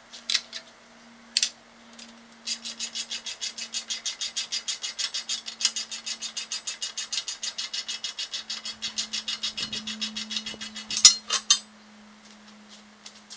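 Ratchet wrench clicking rapidly and evenly, about seven or eight clicks a second, while exhaust header bolts are backed out, with a few sharp metal clinks near the start and a louder clink near the end. A faint steady hum runs underneath.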